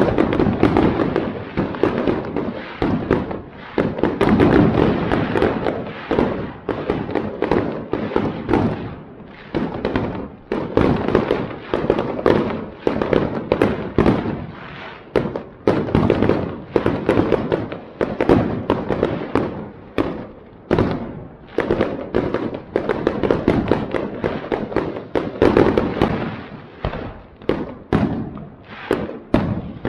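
Aerial fireworks bursting one after another: a steady barrage of bangs and crackle, densest in the first few seconds, with separate reports more distinct later on.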